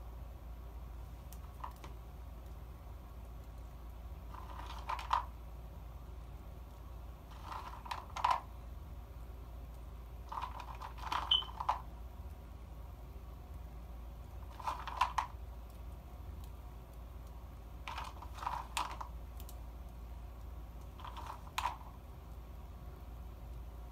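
Light clicks and taps in short clusters, about every three seconds, as pieces of fried chicken are picked up and set down on the dough in an electric grill pan. A low steady hum sits underneath.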